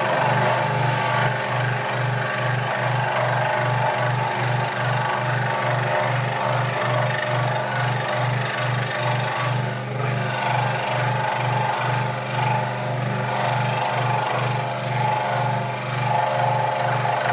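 Scroll saw running, its reciprocating blade cutting through a small piece of wood.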